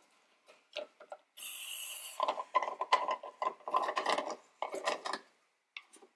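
A plastic screw-on fuel filler cap of a 1998–2002 Honda Accord being unscrewed by hand. There are a few light clicks, then a brief hiss about a second and a half in as the fuel tank vents its pressure. A run of rasping scrapes follows as the cap's threads turn.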